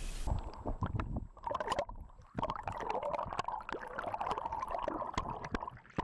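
Muffled gurgling and bubbling of lake water heard through an action camera's waterproof housing just below the surface, with many small clicks and knocks.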